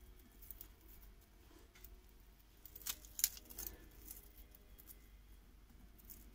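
Raw onion slices pulled apart into rings by hand and dropped into a glass bowl: faint crisp rustling with scattered small clicks, two sharper ones about three seconds in.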